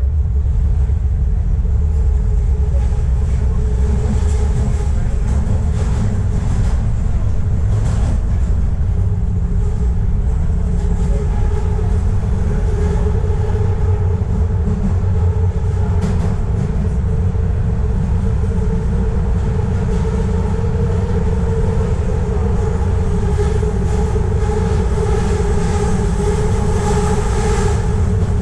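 Subway train running along the line, heard from inside the car: a steady low rumble with a motor whine that grows stronger over the last several seconds. A few sharp clicks sound in the first half.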